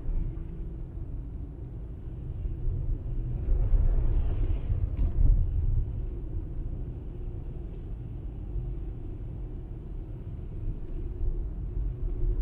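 Inside a moving car's cabin: steady low rumble of the engine and the tyres on a snow-covered road, swelling louder for a couple of seconds about four seconds in.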